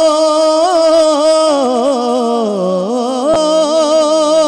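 A man singing a naat, drawing out a long held note that wavers and dips lower in pitch about halfway through before rising back.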